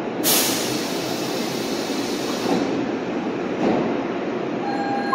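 Osaka Metro Sakaisuji Line subway train moving along the platform with steady running noise. A sharp hiss of air comes just after the start and fades over about two seconds.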